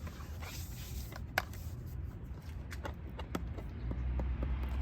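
Scattered light clicks and knocks of the Silver Play Button plaque and its packaging being handled, over a low steady hum.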